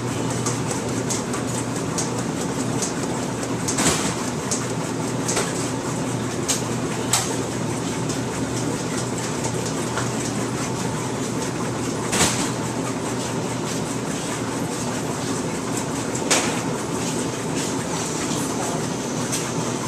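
Laundry machines running: a steady hum and rumble, with a few sharp clanks at irregular moments.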